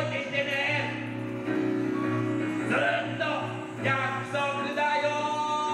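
Music: a song with a voice singing short phrases over held instrumental chords, the event's children's art theme song.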